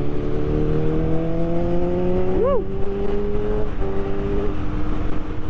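Motorcycle engine pulling under gentle acceleration, its note climbing slowly and steadily, over wind rush. About halfway through, a short tone rises and falls.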